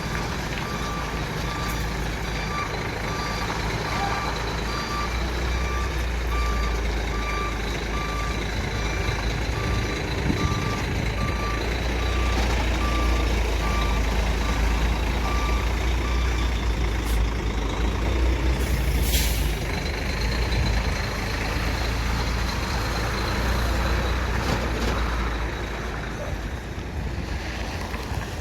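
Heavy diesel vehicle running with its reversing alarm beeping steadily until a little over halfway through, then a short sharp hiss of released air.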